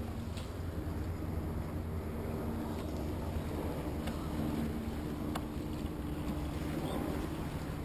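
Wind rumbling on the microphone over a steady low hum, with a few faint clicks.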